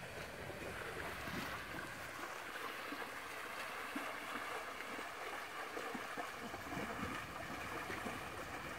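Faint, steady outdoor ambience over flooded rice paddies: an even rushing noise with no distinct events.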